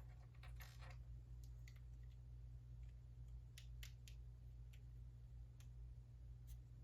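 Faint, scattered clicks of LEGO pieces being handled and snapped together: a quick cluster about half a second in, then single clicks every second or so, over a low steady hum.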